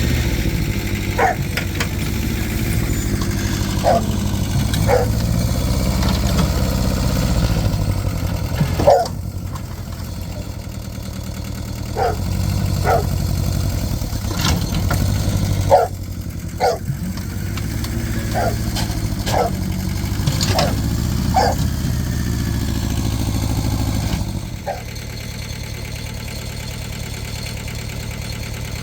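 An engine idling steadily, with a dog barking off and on, about fourteen short barks.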